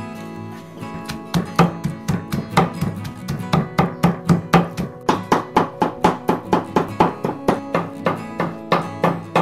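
Cleaver chopping raw pork on a wooden chopping block in a quick, even rhythm of about four chops a second, starting about a second in, over acoustic guitar music.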